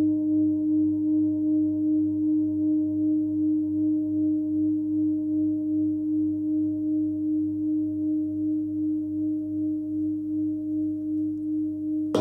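A 30.6 cm hand-forged Nepalese singing bowl tuned to a 99 Hz G, ringing on after a strike. It is a steady, slowly fading hum of several overtones with a gentle wobble of a couple of pulses a second. It is struck again with a felt mallet right at the end.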